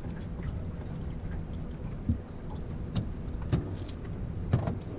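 Low steady rumble of a small outboard motor running on an aluminum fishing boat, with several sharp knocks and bumps on the metal hull, the loudest about four and a half seconds in.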